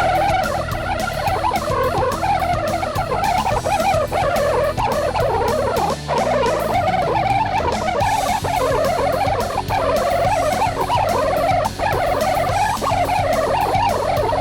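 Background rock music: a melodic electric guitar line over a steady drum beat.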